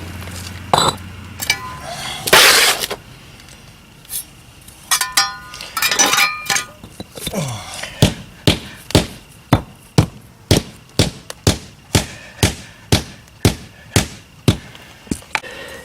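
Pavers and tools scraping and clinking as they are handled, then a rubber mallet striking pavers in a steady rhythm, about two blows a second for some seven seconds, tamping them down into a sand-and-cement bed.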